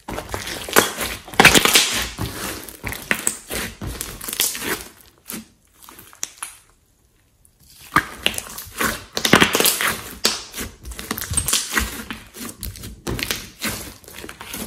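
Hands squeezing, folding and stretching a glossy slime mixed with clay, giving dense sticky crackles, clicks and pops in two bursts with a short near-silent pause about halfway through.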